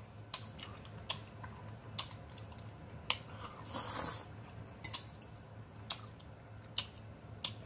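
Close-up chewing of chitterlings: sharp wet mouth smacks and clicks, irregular, about one a second, with a short breathy hiss about four seconds in.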